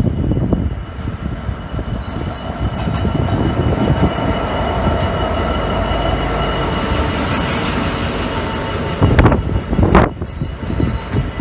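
Freightliner Class 66 diesel-electric locomotives passing at close range, their EMD two-stroke V12 engines giving a heavy low rumble, with a thin steady high squeal from the wheels. Two loud thumps come near the end.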